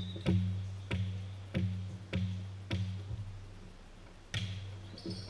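A volleyball bounced on a hardwood gym floor about six times in an even rhythm, each bounce booming in the hall, then struck hard once about four seconds in, as for a serve.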